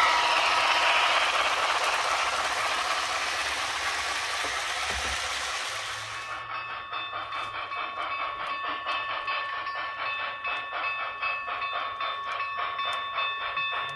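Sound-equipped Broadway Limited HO scale C&O Greenbrier #614 steam locomotive model running: an even hiss of steam for the first six seconds, then a steady chuffing rhythm of about three beats a second under a held ringing tone.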